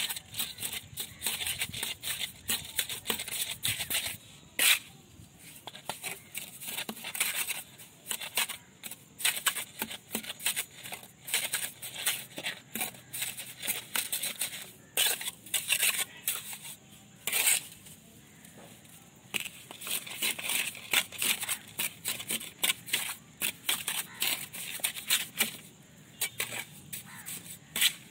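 Steel mason's trowel scraping and pressing wet mortar into the joints between bricks and spreading it over their tops: many short, irregular scraping strokes, with one sharper knock about five seconds in.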